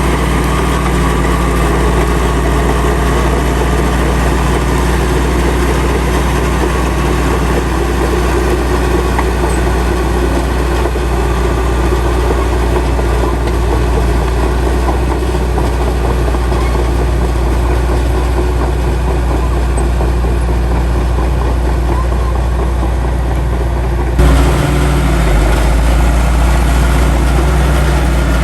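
Heavy diesel engine of earthmoving machinery running steadily, a low, even engine sound; about two-thirds of the way through, the sound changes abruptly.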